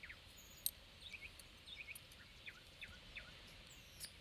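Faint outdoor background with small birds chirping: short high calls, often in pairs, repeated about half a dozen times. A few light clicks, the loudest about two-thirds of a second in.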